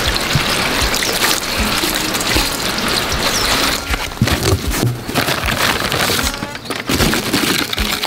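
Water gushing from a garden hose and splashing over lettuce leaves into a basin. About halfway through it gives way to rustling and crinkling as a cardboard box with a plastic liner is opened.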